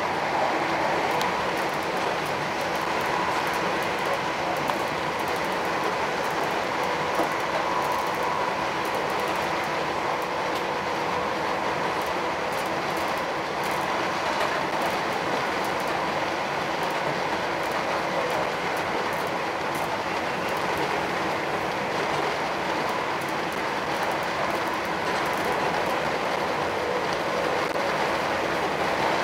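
Northern class 319 electric multiple unit running at speed, heard from inside the carriage: a steady rumble of wheels on rail with a steady whine through it.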